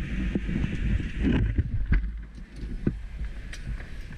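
Steady low rumble of a fire engine running, with wind on the microphone and scattered knocks and clunks of gear being handled.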